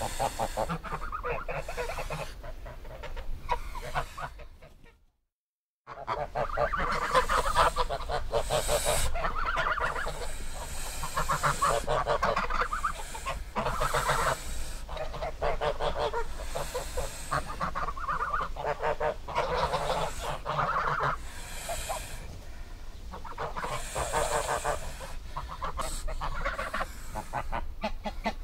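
Geese honking in repeated runs of calls, broken by about a second of silence about five seconds in.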